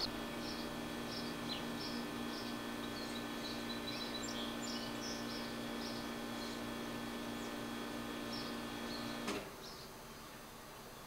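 A steady buzzing hum that cuts off suddenly with a click about nine seconds in. Over it, short high chirps repeat about twice a second.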